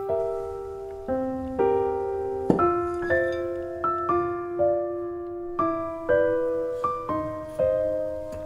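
Background piano music: single notes and chords struck about twice a second and left to ring and fade.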